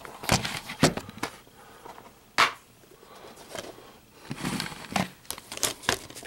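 A plastic Blu-ray case being handled and opened: a few sharp clicks and snaps in the first few seconds, then crinkly rustling and smaller clicks towards the end.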